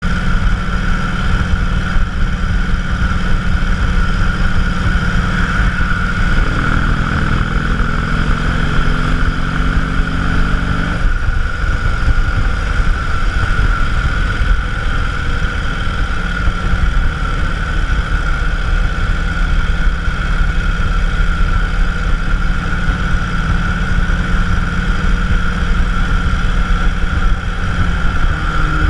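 Cruiser motorcycle engine running steadily at road speed, heard from the rider's seat over a heavy low wind rumble on the microphone. About a quarter of the way in the engine note climbs for a few seconds, then drops back and holds steady.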